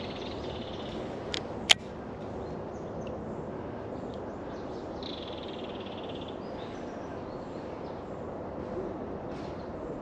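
Baitcasting reel being worked over a steady outdoor hiss. Two sharp clicks come about one and a half seconds in, the second much louder, and a high buzzing whir lasts a couple of seconds around the middle.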